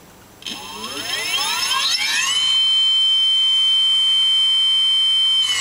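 MAC 2000W lawnmower motor spinning up with no load on a 15S (57 V) pack: a whine that rises in pitch for about two seconds as it speeds up, then holds one steady high pitch at full speed.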